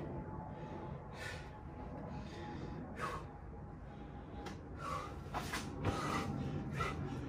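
A man breathing hard in short, sharp gasps and exhales from the exertion of doing burpees with push-ups, several breaths spread through the stretch. There is a soft knock about six seconds in.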